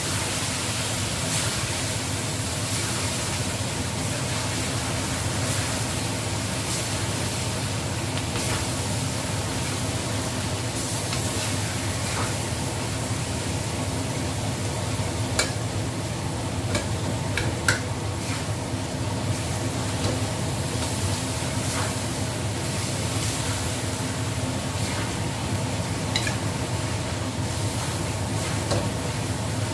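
Tofu and egg sizzling in chili sambal in a stainless steel wok while a metal spatula stirs and scrapes against the pan, with scattered clicks as it taps the metal. There is one sharp tap a little past halfway.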